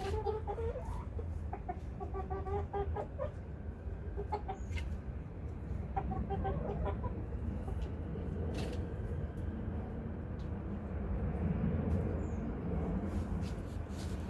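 Domestic chickens clucking in runs of short, repeated pitched notes during the first few seconds and again about six seconds in, over a steady low background rumble.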